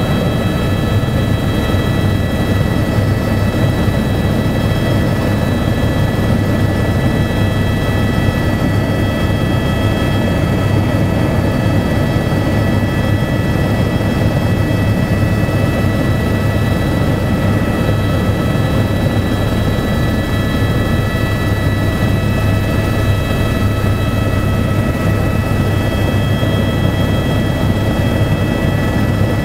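Helicopter in flight, heard from inside the cabin: a steady low drone of engine and rotors with a constant high whine of several tones above it, unchanging throughout.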